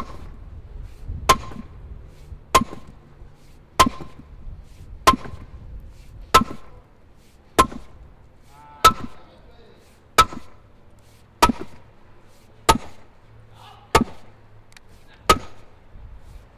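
Sledgehammer striking a large basalt block, steady blows about every second and a quarter. Each blow is a sharp crack with a short ring.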